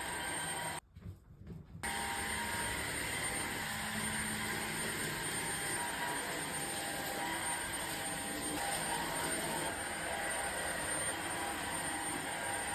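Cordless non-tangle vacuum cleaner running steadily with a high whine. The sound drops out for about a second near the start, then carries on.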